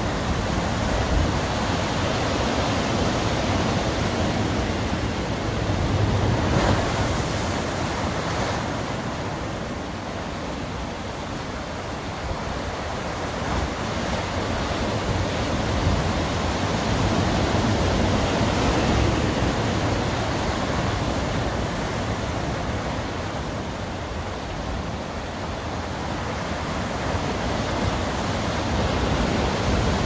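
Ocean surf breaking over and around rocks: a continuous rush of white water that swells and eases every several seconds as sets of waves come in.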